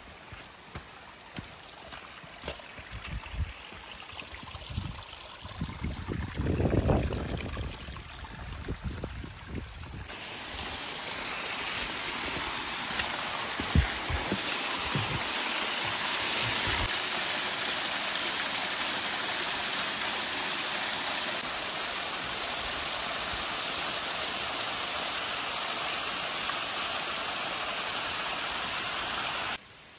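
Footsteps on a stony forest path over faint background for about ten seconds, then the steady rush of a small waterfall splashing into a pool, which cuts off abruptly near the end.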